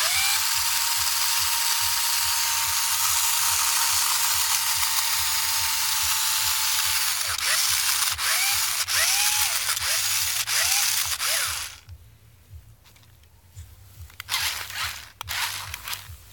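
Electric drive motors and gears of a homemade battery-powered four-wheel-drive RC truck spinning the front and rear wheels freely in the air, a loud high whir. A steady whine runs under it for the first several seconds, then the pitch rises and falls quickly several times. It stops suddenly about twelve seconds in, and a short burst of whirring follows near the end.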